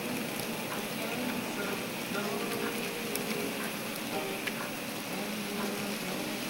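Long N scale model freight train rolling along the track: a steady rushing hiss of many small wheels on the rails, with scattered light clicks.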